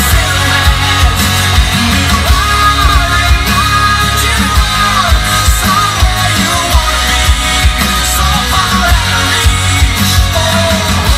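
A rock song with sung vocals and strong bass playing loudly through a 2017 Ram's factory Alpine stereo, its front doors now fitted with JL Audio Evolution C2-600 3/4-inch tweeters, heard through a phone's microphone in the cab.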